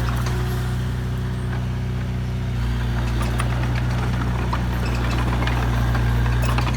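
A heavy vehicle's diesel engine running steadily at low revs, with scattered light clicks and rattles.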